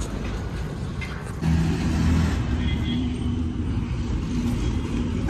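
Road traffic outdoors, with a vehicle engine running close by: a steady low hum that comes in abruptly about a second and a half in.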